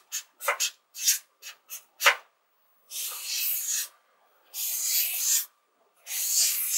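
Felt-tip marker squeaking and scratching across flip chart paper: a run of quick short strokes, then three longer strokes of about a second each.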